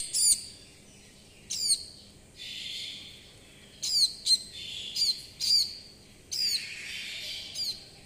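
A white-eye nestling giving short, high begging chirps that sweep downward, about eight in all at uneven gaps, with a soft hiss between some of them. It is a hungry chick calling to be fed.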